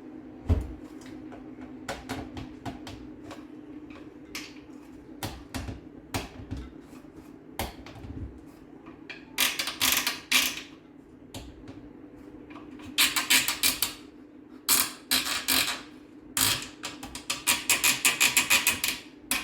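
Bamboo pegs being worked through tight holes in bamboo legs: scattered wooden knocks and several spells of fast clicking and scraping, wood against wood, the longest near the end.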